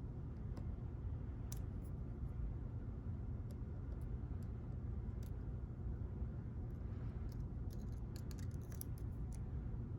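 Faint metallic clicks and ticks of lock picks tapping the pins of a JPM 405 pump lock, a few scattered at first and a quicker run about seven to nine seconds in, over a steady low background hum.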